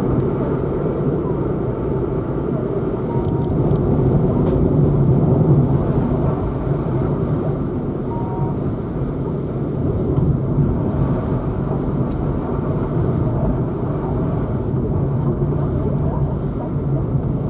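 Car driving along steadily: an even engine hum under tyre and road noise, with a few faint clicks or rattles a few seconds in.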